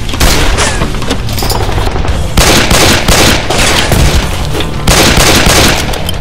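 Three bursts of rapid gunfire sound effects over background film music.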